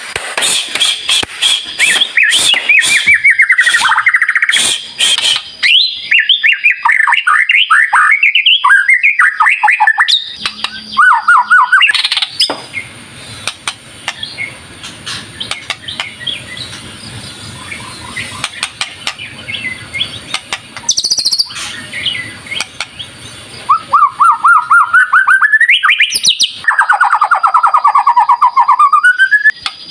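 White-rumped shama in full song: loud, fast runs of rapidly repeated notes sweeping up and down. About twelve seconds in, the song drops to a quieter stretch of faint calls over a low hum, and loud rapid trills return for the last several seconds.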